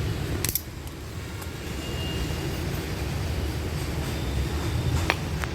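Steady low mechanical rumble with a sharp click about half a second in and two more clicks near the end.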